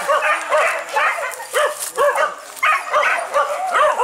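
A pack of hunting dogs barking and yelping excitedly, several voices overlapping in quick succession.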